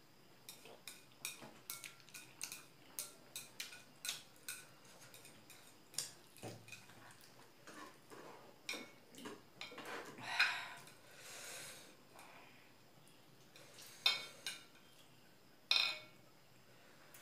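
Chopsticks clicking and scraping against a plate while eating momos: a string of sharp, irregular taps, a brief scrape about ten seconds in, and louder clatters near the end.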